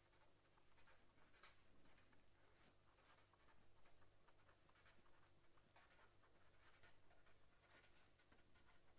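Faint scratching of a pen writing on paper in short irregular strokes, over a low steady hum.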